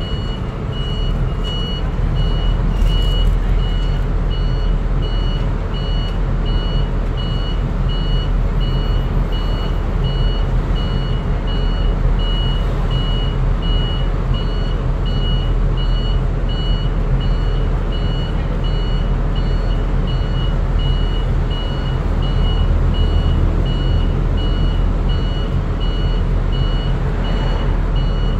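Bus interior: the engine runs with a steady low rumble in slow traffic, under a high electronic beep that repeats at an even rate throughout.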